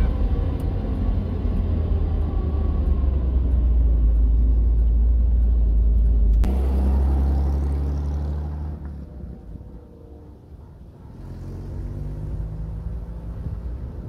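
1968 Camaro under way with a four-speed manual, heard from inside the cabin: a steady engine and road rumble. About six seconds in it cuts to an old coupe's engine fading as the car drives away.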